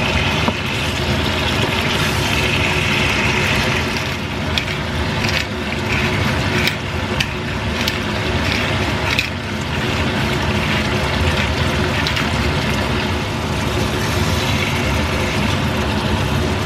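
Meat, peppers and tomatoes sizzling steadily in a nonstick frying pan, with a wooden spatula stirring and knocking against the pan a few times in the middle.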